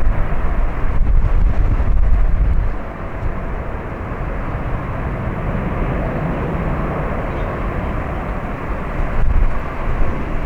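Jet roar from an Airbus A350-900's Rolls-Royce Trent XWB turbofans on takeoff, steady throughout. Strong wind buffets the microphone for the first three seconds and again near the end.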